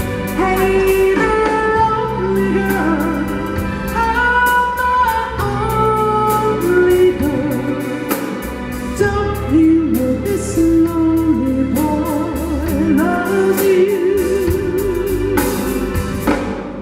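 Music: the intro of a slow soul ballad, a melody with vibrato over bass and a steady beat, leading into the vocal.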